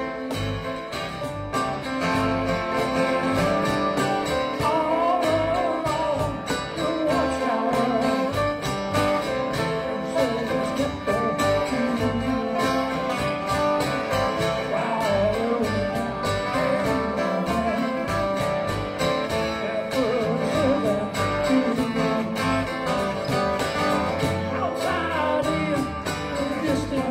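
Live band playing a song: strummed acoustic guitars, electric bass and a steady cajón beat, with a wavering melody line on top.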